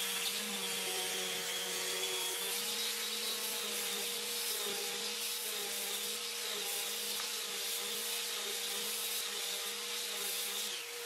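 Random orbital sander with a dust-extraction hose attached, running steadily on a wooden cabinet door frame: a constant motor whine over the hiss of the sanding pad and the extraction airflow.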